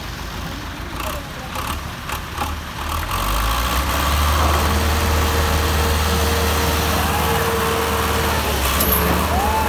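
Two tractor diesel engines, a John Deere 720 and a Massey Ferguson 385, running under load as they pull against each other on a chain in a tug-of-war. The low engine rumble swells about three seconds in and stays loud.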